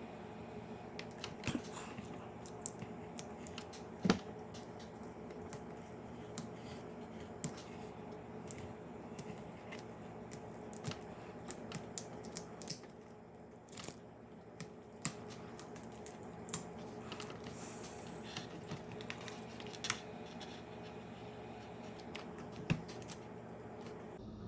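Scattered small clicks and taps of fingers and a tool working on a laptop's plastic shell while the tape over the display cable connector is lifted, the sharpest about four seconds in and again around thirteen to fourteen seconds. A steady low hum runs underneath.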